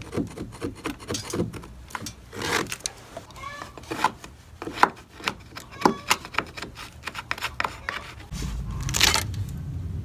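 Hand tools scraping and prying at old caulk and nails in a wooden window frame: a run of irregular scrapes, clicks and small knocks. A low rumble comes in near the end.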